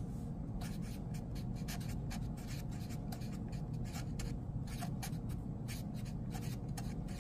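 Marker pen writing on paper: a quick, uneven run of short strokes as words are written out.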